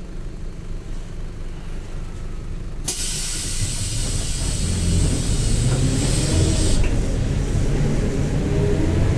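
Low rumble of a Mercedes-Benz OF-1721 city bus's six-cylinder diesel engine. About three seconds in, a loud hiss of compressed air starts suddenly and cuts off about four seconds later, while the engine grows louder and rises in pitch.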